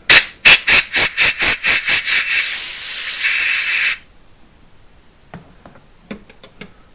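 Compressed-air blow gun firing quick short blasts, about four a second, then a steady blast that cuts off sharply about four seconds in. It is blowing drilling swarf out of a freshly drilled stud hole in a VW 2-litre air-cooled cylinder head. A few faint clicks follow.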